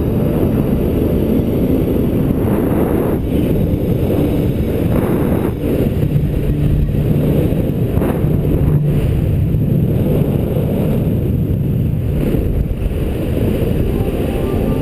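Wind noise on the camera's microphone during a paraglider flight: a loud, steady, low rush of airflow buffeting the mic.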